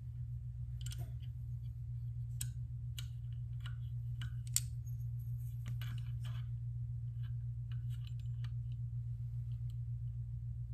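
Light metal clicks and taps as a hone holder is handled and fitted onto the guide rod of a KME knife sharpener, the sharpest click about four and a half seconds in. A steady low hum runs underneath.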